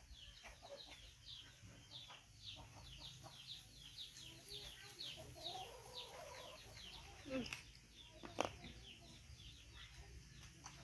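Faint, rapid high chirps from birds, several a second throughout, each a quick downward note, with a wavering lower call in the middle. Two sharp knocks about a second apart come two-thirds of the way through.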